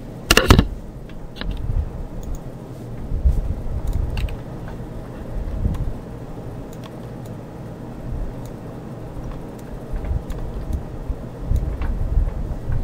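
Scattered faint clicks of a computer mouse and keyboard over a low, uneven rumble of microphone and desk noise, with one short louder burst just after the start.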